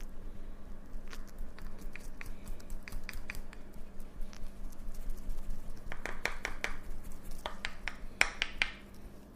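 Massage strokes by a barber's hands making a run of sharp clicks and snaps, coming in quick clusters about six and eight seconds in, with the loudest snaps near the end. A faint steady hum lies underneath.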